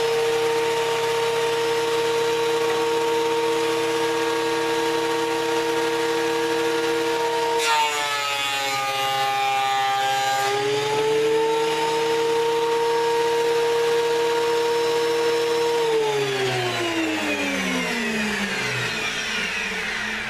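Delta 22-590 13-inch benchtop thickness planer running with a steady high whine. About eight seconds in, the pitch sags for a few seconds as a pine board feeds through the cutterhead, then comes back up. Near the end the motor is switched off and winds down with a falling whine.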